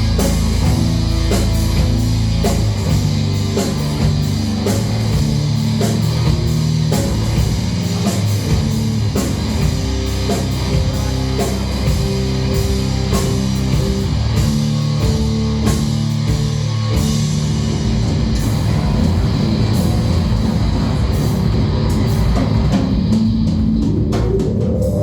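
A rock band playing a heavy song, with electric guitar and drum kit at a steady loud level. Near the end a note glides upward in pitch.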